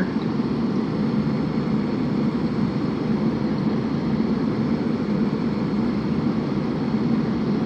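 Steady hum and air rush of a running central-HVAC indoor air handler, unchanging throughout.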